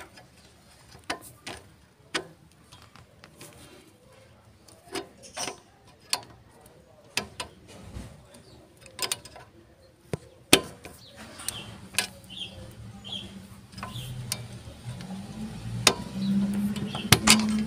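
Irregular sharp metallic clicks and taps of a flat screwdriver being worked against a rear brake adjuster, about one every second or so. In the second half a low steady vehicle engine hum comes up and is the loudest sound near the end.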